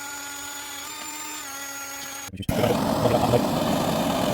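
A small electric machine gives a steady whine of several fixed tones. About two and a half seconds in it cuts to a louder, steady rushing roar of a gas torch heating the rifle's steel parts before they are quenched in oil.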